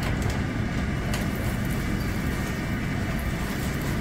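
Butter sizzling and foaming as it browns in a stainless steel skillet, over a steady low rumble, with a couple of light spatula scrapes near the start and about a second in.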